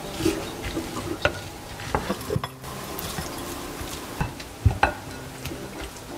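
A rice paddle stirring and pressing cooked rice with seasoning in a glass bowl: soft scrapes and irregular taps of the paddle against the glass, the loudest a little before five seconds in.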